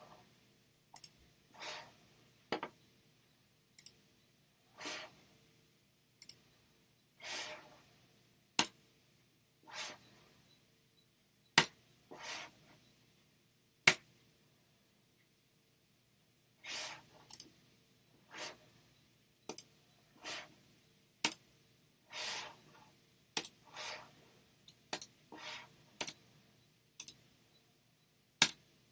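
Computer mouse clicks, sharp and irregular, a few much louder than the rest, with short soft hissing sounds between them.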